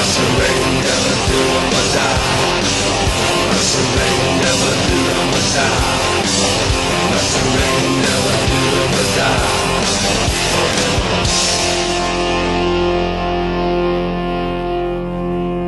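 Rock music with guitar and drums. About eleven seconds in, the drums stop and a final chord rings on, beginning to fade.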